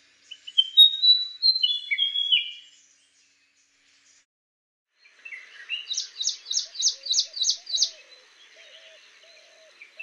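A fantail singing a string of short, clear whistled notes at slightly different pitches, lasting about two and a half seconds. After a pause, an ashy prinia sings a rapid run of about eight repeated sharp notes, roughly three a second.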